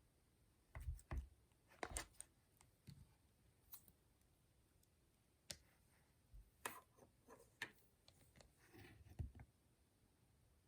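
Slime being pressed and poked by hand, giving faint, irregular clicks and small pops.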